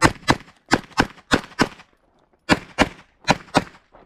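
Glock 34 9mm pistol fired rapidly in double taps: ten shots in five pairs, each pair about a quarter second apart, with a pause of just under a second after the sixth shot.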